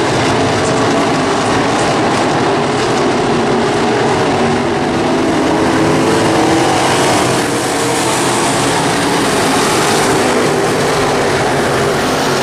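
Race car engines running hard during a race, a loud, steady engine noise that dips briefly about seven and a half seconds in.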